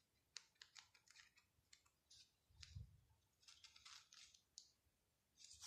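Faint, irregular scratchy ticks and rustles of loose threads being drawn out of the edge of cross-stitch fabric to free its fringe, with a soft low thump about halfway through.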